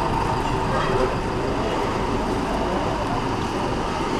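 Small vintage coach's engine running as it drives away over cobbles: a steady, even engine noise.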